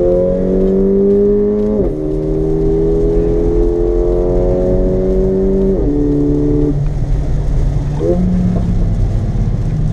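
Mercedes-AMG GLA 45's turbocharged 2.0-litre four-cylinder under hard acceleration with the sport exhaust open, heard from inside the cabin. The engine note climbs steadily, drops sharply with an upshift about two seconds in, climbs again, and drops with another upshift about six seconds in before the driver eases off.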